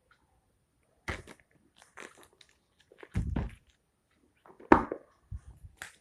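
Plastic wrapper being torn and pulled off a phone box: irregular crinkling and rustling in separate bursts, with soft handling knocks, the loudest burst about three quarters of the way through.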